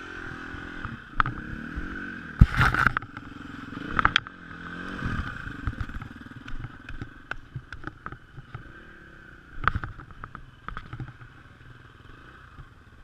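KTM dirt bike engine revving up and down in pitch as the bike is worked through snow and dirt, with loud knocks about two and a half and four seconds in. The engine quietens in the second half, leaving scattered clicks.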